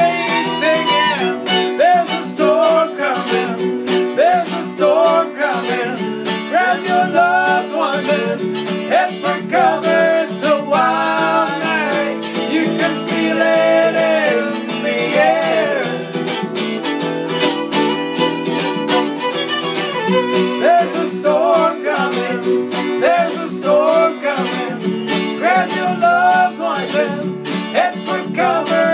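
Fiddle and strummed acoustic guitar playing together live, the fiddle carrying the melody over steady guitar strumming.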